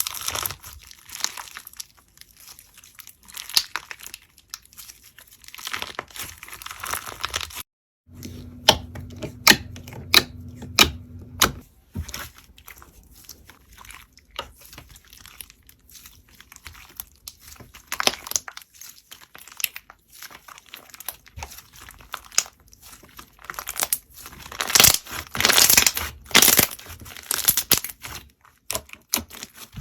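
Slime being squeezed and worked by hand, giving irregular crinkly crackles and sharp pops. A brief silent break about a quarter of the way in separates clips, and the crackling grows dense and loud near the end.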